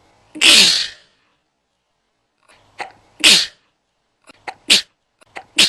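One person's sneeze, a quick intake of breath and then a loud burst, repeated four times. Each repeat is shorter and quicker than the last, as the same sneeze is played back at rising speeds.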